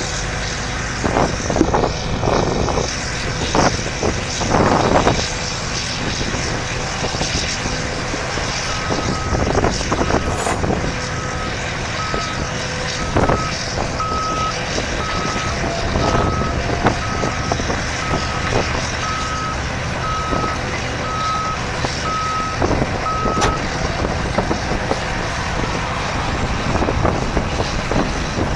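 Diesel engine of a Caterpillar tracked bulldozer running under load, with knocks and clanks in the first few seconds. A backup alarm beeps evenly from about a third of the way in until past three-quarters.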